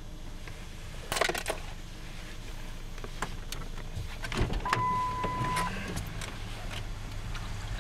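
Car keys jangling and clicking at the ignition about a second in, over a steady low rumble inside the car. Scattered knocks follow, and a single one-second electronic beep sounds past the middle.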